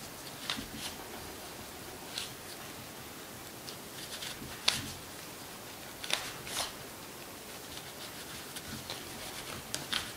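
Cloth rag rubbing and rustling over a Glock 19's frame as it is wiped clean after brushing, with the frame clicking and knocking against the hands now and then; the sharpest click comes about halfway through.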